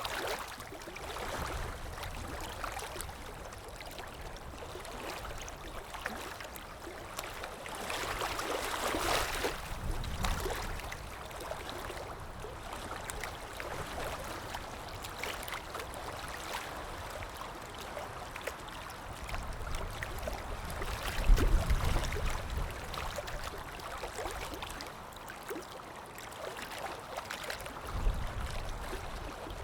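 Running water trickling and splashing, with many small drips and gurgles, swelling for a couple of seconds about eight seconds in. Low rumbles come twice, about 21 and 28 seconds in.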